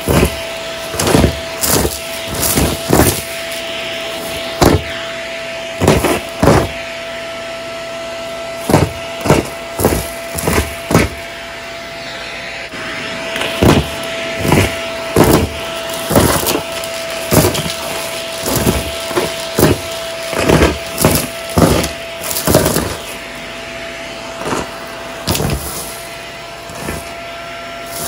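Vacuum cleaner running with a steady whine while sucking up small hard debris, which clatters and crunches through it in frequent, irregular sharp rattles.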